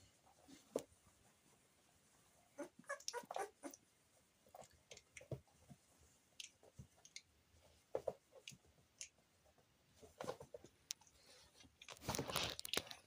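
Four-week-old puppies shuffling and scrambling on a cloth blanket: faint scattered scratches, clicks and rustles, with a louder rustle lasting about a second near the end.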